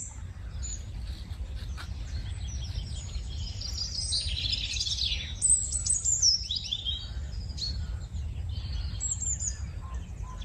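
Several songbirds chirping and singing in quick, gliding notes, busiest around the middle, over a steady low rumble.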